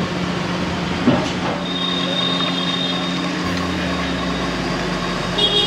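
Roadside street noise: a steady low hum, with a thin high squeal for a second or two in the middle and again near the end.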